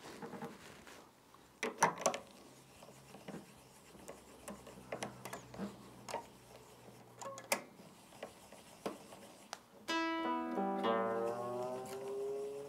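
Nylon D string on a classical guitar being wound up at the tuning machine: small clicks and rubbing from handling the string and tuner, then about ten seconds in the string rings out and its pitch slides upward as it is tightened toward tune.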